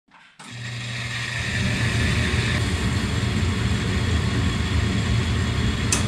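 Gas furnace starting up and its burners lighting: a steady low hum and rumble builds over the first couple of seconds, with a hiss that stops about halfway, and one sharp click near the end.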